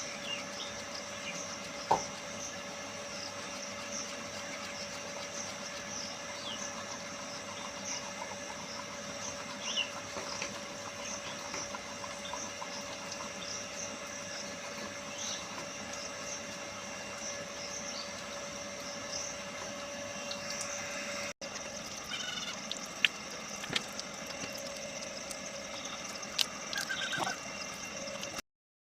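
Steady outdoor background noise with a faint steady hum and occasional short bird chirps, and a single sharp knock about two seconds in; the hum stops abruptly at an edit about three quarters of the way through.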